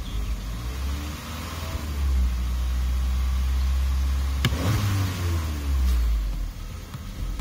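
Car engine revved from the accelerator pedal: the revs climb about two seconds in, are held for a few seconds, then fall back toward idle near the end. A single sharp click sounds about halfway through.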